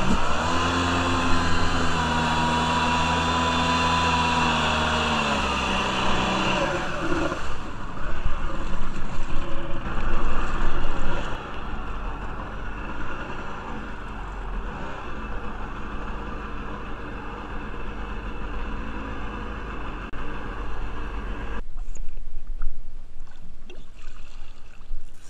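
Kawasaki JS440 stand-up jet ski's two-stroke engine running at speed with water rushing under the hull. About seven seconds in the engine note drops away as the craft slows, followed by a few seconds of loud splashing, then quieter engine and water noise, which falls off sharply near the end. The owner judges that the rebuilt engine runs quite well.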